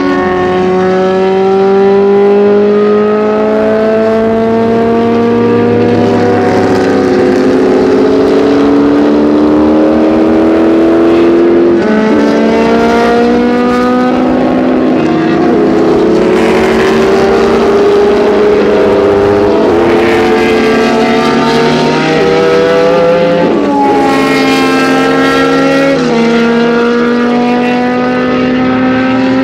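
Historic sports racing car engines accelerating away through the gears. The pitch climbs steadily, then drops back at each upshift, several times over.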